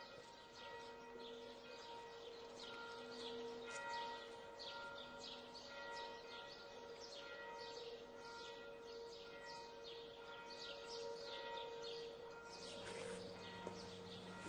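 Many small birds calling in short, quick falling chirps over a faint steady hum of several held tones. A low hum joins near the end.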